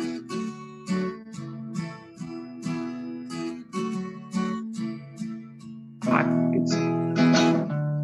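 Acoustic guitars strumming chords in a steady rhythm, about two strums a second, heard over a video call. About six seconds in, the strumming gets louder and fuller.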